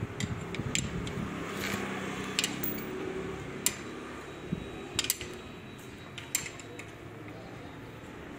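Irregular metallic clinks and taps of a spanner working the bolts on a car's manual gearbox casing, loudest about a third of the way in and around the middle, over a low background rumble.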